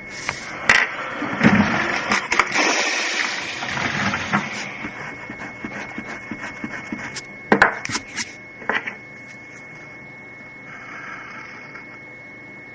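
Pen scratching across paper in drawing strokes, with several sharp clicks or taps, over a faint steady high tone.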